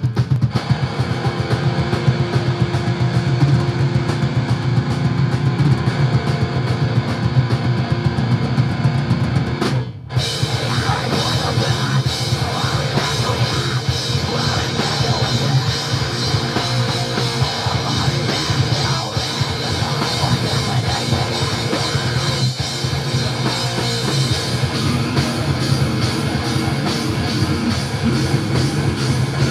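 Live rock band playing heavy rock: pounding drum kit and distorted electric guitars. There is a short break about ten seconds in, after which the full band comes back in with more cymbal.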